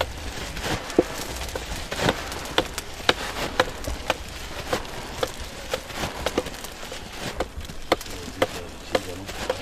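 Blacksmith's hammer striking metal being forged, irregular blows about one to two a second, some with a brief metallic ring.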